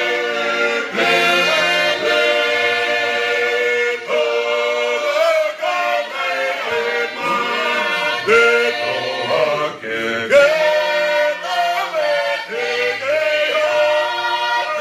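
A group of voices singing together unaccompanied, in harmony, moving between long held notes.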